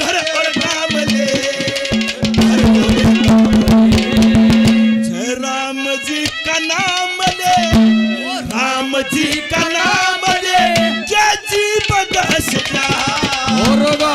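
Live Haryanvi ragni music: hand drums played in a fast rhythm under a male singer's melody, with a steady held note sounding on and off. The drumming thins out for a couple of seconds around the middle, then picks up again.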